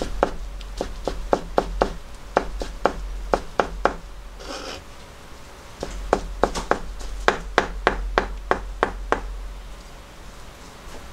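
Kitchen knife slicing a rolled thin egg crepe into fine strips on a plastic cutting board: quick knocks of the blade on the board, about three to four a second, in two runs with a brief rustle between them about halfway through.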